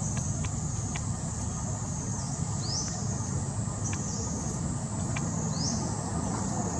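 Steady high-pitched insect drone, with a few rising sweeps into it, over a low rumble.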